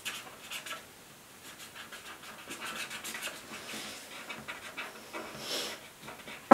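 Felt-tip markers scratching on paper in quick, faint, irregular strokes as two children colour, with one sharp tap at the very end.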